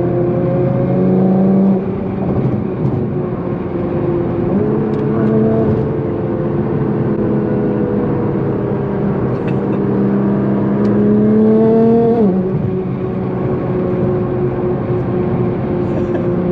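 Nissan GT-R's twin-turbo V6 pulling under steady throttle, heard from inside the cabin. Its pitch climbs slowly for several seconds, then falls sharply about twelve seconds in as the revs drop at a shift or lift-off.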